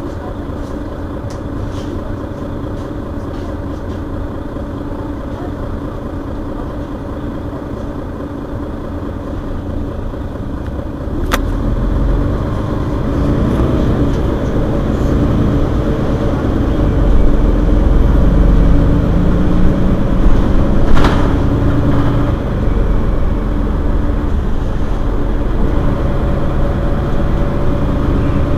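Mercedes-Benz Citaro Facelift city bus diesel engine idling while standing. About eleven seconds in, a short sharp sound is heard and the engine grows louder and heavier, its pitch wandering up and down, with another short sharp sound later.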